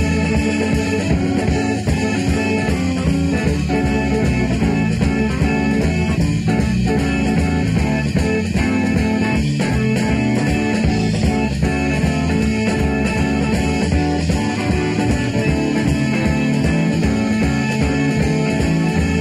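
Southern rock band playing live, an instrumental stretch of a blues-rock song with electric guitar to the fore over drums.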